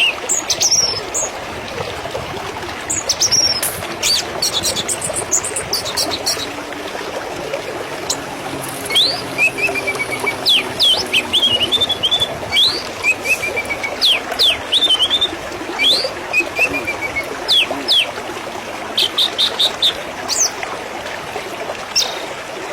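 Small birds chirping over a steady rush of flowing water. The calls are short, sharp notes sweeping up or down, some in quick runs of three or four, scattered through the whole stretch.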